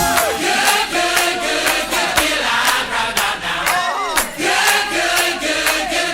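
A group of voices chanting together in unison, with sharp claps about twice a second.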